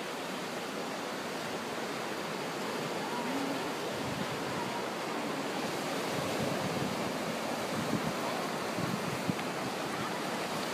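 Sea surf washing against a rocky shore, a steady rushing noise, with some wind buffeting the microphone.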